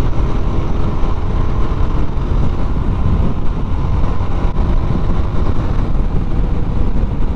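TVS Apache RTR 160 motorcycle's single-cylinder engine running steadily at cruising speed, mixed with wind rushing over the helmet-mounted microphone.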